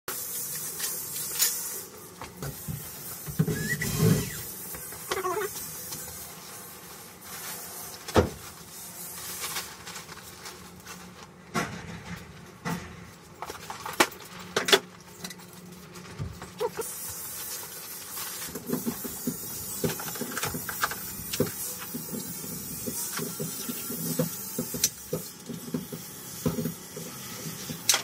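Hand tools knocking, scraping and clattering on a tiled floor and a ceramic squat toilet during plumbing work. Sharp knocks are scattered irregularly throughout, with a few short squeaks about four to five seconds in.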